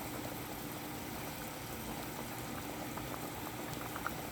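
A pot of coconut milk with squash bubbling at a steady boil, with a faint click or two near the end.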